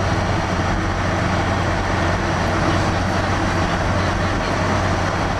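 Steady road and engine noise of a car driving through a road tunnel, heard from inside the cabin, with a constant low hum underneath.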